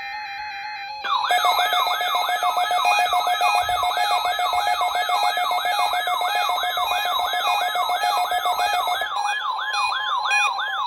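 Electronic siren in a fast yelp, its pitch sweeping up and down about two and a half times a second over a steady pulsing tone. It cuts in sharply about a second in, and the pulsing tone drops out near the end while the sweeps go on.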